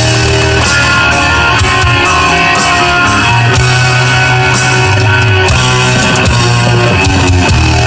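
Loud 1980s hard rock recording with electric guitar and drum kit, playing steadily.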